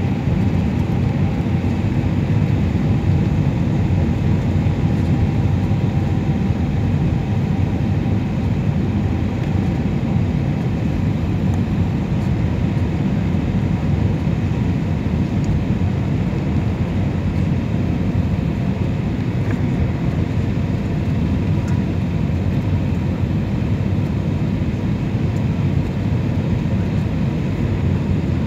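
Jet airliner cabin noise during the descent to landing: a steady low rumble of the turbofan engines and airflow, with a faint high hum above it.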